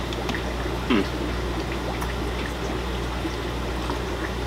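Steady water noise from the aquariums of a fish room: the bubbling and trickling of filters and air-driven tanks, over a low, even electrical hum. A short vocal murmur comes about a second in.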